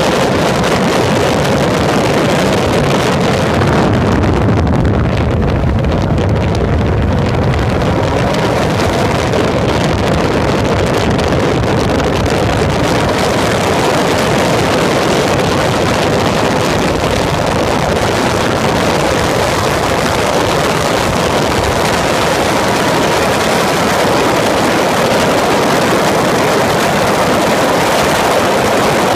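Open-cockpit Peugeot racing prototype running at speed on a track, heard onboard: steady engine drone mixed with wind rushing over the microphone. It slows through a bend, then accelerates hard onto a straight.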